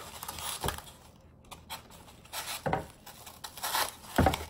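Handling noise as orchid stems are pushed and shifted in moss inside a ceramic bowl vase: soft rustling with a few light knocks of stems against the ceramic, about three of them.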